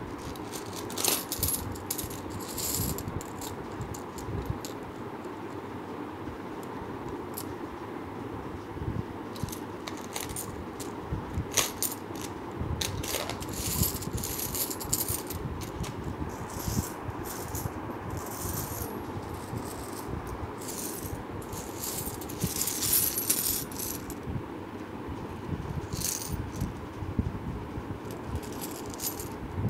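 Indian 5- and 10-rupee coins clinking against one another as a hand sifts and picks through a pile of them on a cloth, in irregular clusters of metallic jingling with short pauses between.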